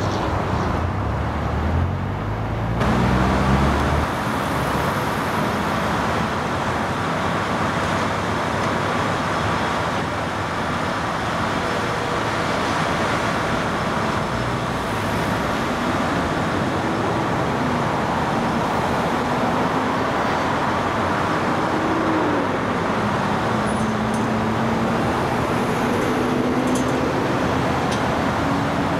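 Heavy machinery engine running over a steady wash of noise, its pitch drifting up and down, with a louder low rumble in the first few seconds.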